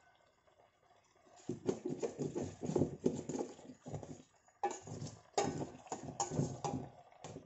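Metal spoon stirring and scraping through coconut-milk fish stew in a stainless steel pan, in irregular strokes with knocks against the pan. It starts about a second and a half in and pauses briefly around four seconds.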